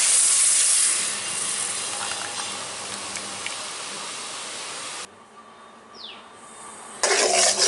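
Jaggery syrup poured into a hot metal kadai sizzling, a loud hiss that slowly dies down and cuts off about five seconds in. Near the end a metal ladle starts scraping and stirring in the pan.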